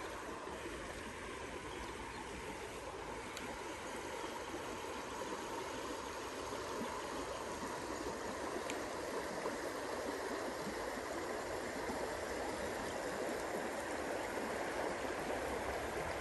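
Creek water flowing in a steady rush, the stream running high and muddy after overnight rain.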